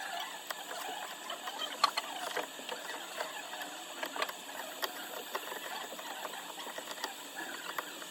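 Small repair tools clicking and scraping against an iPhone's back during back-glass replacement: irregular light taps and ticks over a faint scratching, with one sharper click about two seconds in.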